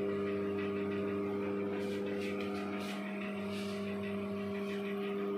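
Lawkim ductable three-speed AC fan motor running on its low speed setting, a steady electrical hum with no grinding, its shaft turning on freshly replaced bushes.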